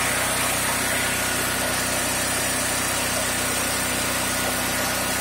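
Firman H07552 dual-fuel generator's engine running steadily on propane, off choke, at a constant speed.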